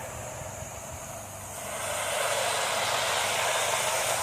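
Pressure washer running: a steady spray hiss over the low hum of its engine, the spray getting louder about two seconds in.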